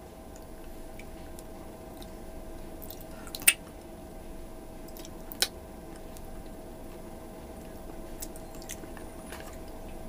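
Wet squishing and chewing of a man eating beef stewed on the bone, fingers pulling the meat apart in the bowl. Two sharp clicks stand out, the louder about three and a half seconds in and another about two seconds later.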